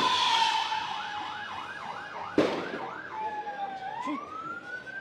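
Emergency vehicle siren in a fast yelp, about four sweeps a second, switching about three seconds in to a slow rising and falling wail. One sharp bang cuts across it about halfway through.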